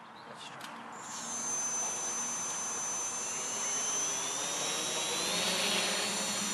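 Storm Drone quadcopter's electric motors and propellers spinning up on the ground, a steady high whine with one tone climbing in pitch through the middle seconds as the throttle comes up.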